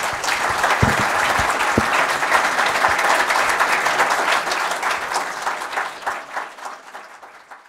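Audience applauding, dense and steady at first, then thinning to scattered claps and dying away near the end. A couple of low thumps sound about one and two seconds in.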